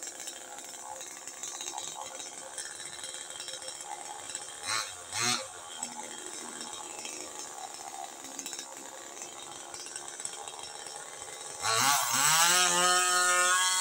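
NW258 chainsaw running at a low, steady idle, with two brief louder sounds about five seconds in. Near the end it revs up sharply, the pitch climbing and then holding high and loud, as the saw is brought to the trunk to cut.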